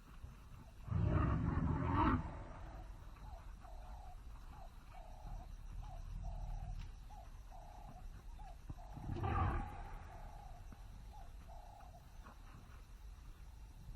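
Elephant roaring twice: a loud, rough roar about a second in and a shorter one around nine seconds. Between them come about a dozen short, evenly spaced mid-pitched calls over a low rumble.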